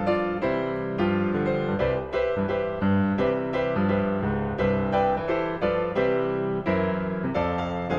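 Background piano music: a steady, continuous run of notes.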